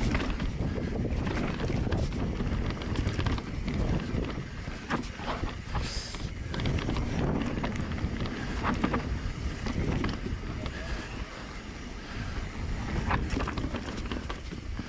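Mountain bike ridden over a rough, rooty dirt trail: wind buffeting the microphone over the rumble of tyres on dirt, with the bike rattling and knocking over roots and a short high squeak about six seconds in.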